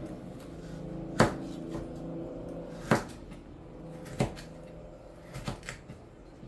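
Chef's knife slicing bell pepper on a plastic cutting board: three sharp knocks of the blade hitting the board about a second and a half apart, then a quick run of lighter cuts near the end, over a steady low hum.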